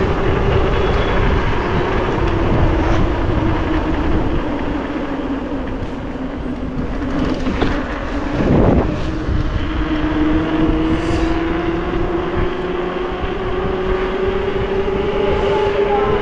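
Mountain bike rolling fast on tarmac: a steady whine that sinks in pitch and then climbs again as the bike slows and picks up speed, over a rushing noise, with a short clatter about nine seconds in.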